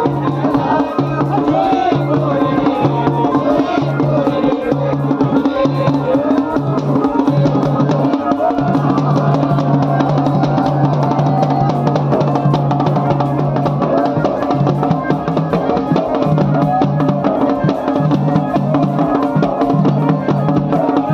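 Live wedding-procession band music: a dhol drum beaten with a stick keeps a steady beat under a melody on a portable electronic keyboard.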